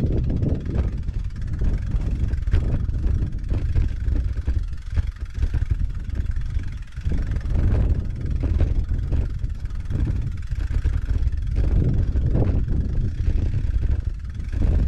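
Wind buffeting the microphone of a camera on a moving bicycle, as a low rumble that rises and falls in gusts, over the bike rolling across bumpy grass.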